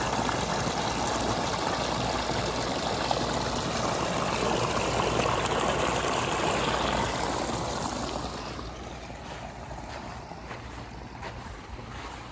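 Fresh water of a small hill stream running and trickling, a steady rush that fades after about eight seconds.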